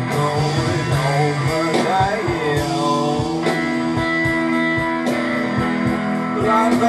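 A song with guitar and singing, played from an iPod through a Magnavox 9304 EL84 push-pull tube amplifier. The amplifier is clean and working after repair: sounding great.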